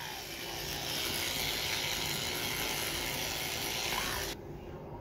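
Electric toothbrush buzzing steadily while brushing teeth, a little louder from about a second in, then switching off suddenly a little after four seconds.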